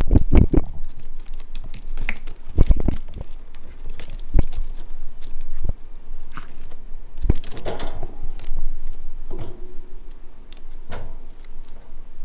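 Kittens clambering over a woven basket cat house: irregular scratchy clicks of claws on the weave, with soft thumps, heaviest near the start and again about a third of the way in.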